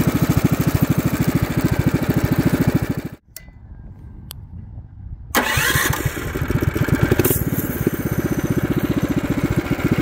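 DuroMax XP7HPE 212cc single-cylinder engine running with a fast, even firing beat. The sound drops away abruptly about three seconds in and comes back loud about two seconds later. It then runs on steadily under the mini bike.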